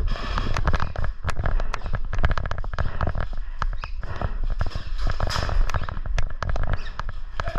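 Airsoft guns firing: a dense, irregular run of sharp pops and clicks over a noisy background.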